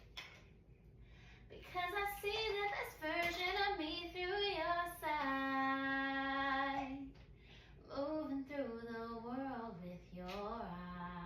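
A woman singing unaccompanied, working on low notes. She sings a moving phrase, holds one steady note for about two seconds, then after a short break sings a phrase that sinks lower near the end.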